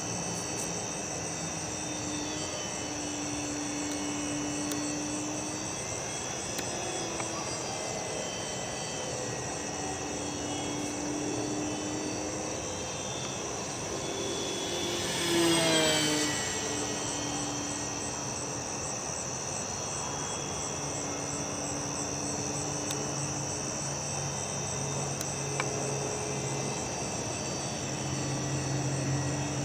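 Crickets chirping steadily under the hum of the FMS Firefly's electric motor and propeller, whose pitch wanders as the throttle changes. About halfway through, the plane makes a close pass: the whine grows louder and falls in pitch as it goes by.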